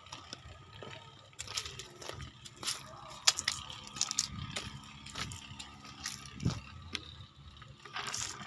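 Footsteps crunching through dry leaves and straw, with the rustle of a phone being handled: irregular crackles, over a faint steady hum.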